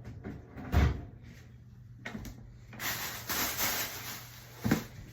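A door opening and shutting: a heavy thud about a second in and a sharp knock near the end, with a hiss in between.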